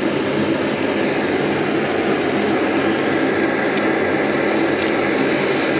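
Jetboil Flash canister gas stove burner running at full flame, a loud steady rush of burning gas. Faint clicks come about four and five seconds in as the cooking cup is set onto the burner.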